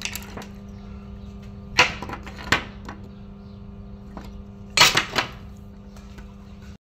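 Metal parts of a welding electrode holder clicking and clattering against a steel workbench as it is taken apart by hand: a couple of sharp clicks about two seconds in and a quick cluster of them about five seconds in, over a steady low hum. The sound cuts out briefly near the end.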